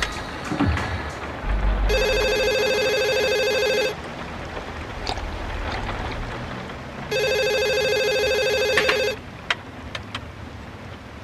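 Cordless telephone ringing: two electronic rings of about two seconds each, a few seconds apart, signalling an incoming call.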